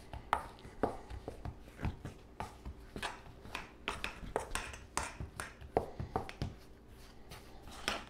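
Metal spoon stirring and scraping crumbly pie dough against a stainless steel bowl, in short irregular strokes about twice a second, as the liquid is worked into the flour and butter.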